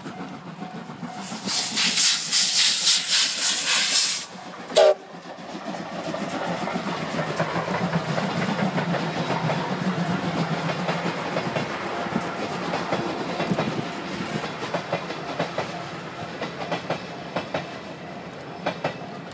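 C57 steam locomotive departing and passing close by: a loud hiss of steam for a couple of seconds, then one short sharp blast about five seconds in. Its coaches then roll past with a steady clatter of wheels over the rails, fading slowly toward the end.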